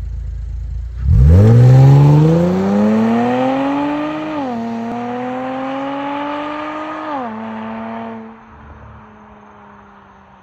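A 2014 Mercedes C350's M276 V6 through an aftermarket Becker C63 AMG-style exhaust, idling and then launching hard about a second in. The engine note climbs steeply, drops at two upshifts, and fades as the car pulls away.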